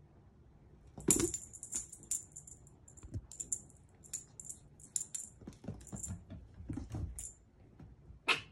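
A small bell on a cat wand toy jingles in quick shakes as the toy is jerked about the floor, with soft thuds as a kitten pounces on the wooden floor and a sharp knock near the end.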